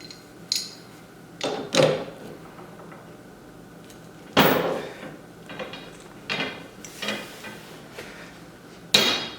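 Steel pipe and fittings clanking and knocking as they are worked tight, about seven separate knocks with short ringing tails, the loudest two about four and a half seconds in and near the end.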